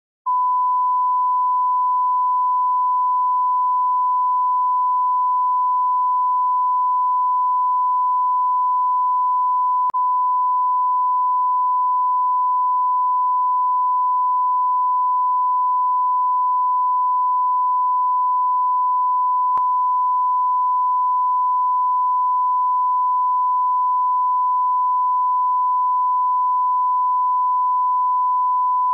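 Steady 1 kHz sine test tone, held at an unchanging level with two faint clicks about ten and twenty seconds in. It is an audio line-up tone used to set playback levels before a broadcast spot.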